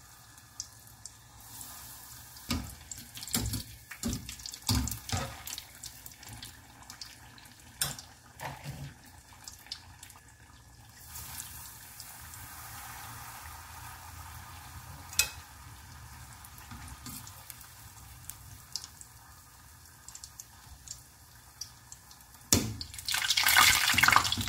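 Batter-coated sausages deep-frying in hot oil: a steady sizzle with scattered clicks and knocks. Near the end comes a louder burst of bubbling and scraping as a wire skimmer stirs and lifts them in the oil.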